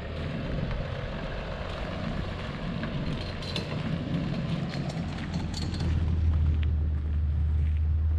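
Wind buffeting the microphone outdoors: a steady low rumble that gets louder about six seconds in, with scattered faint clicks over it.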